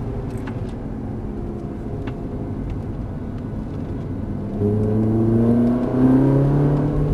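Ferrari engine heard from inside the cabin, running low and quieter off the throttle as the car slows through a corner. About four and a half seconds in it pulls hard with a rising note, and it gets louder again about six seconds in.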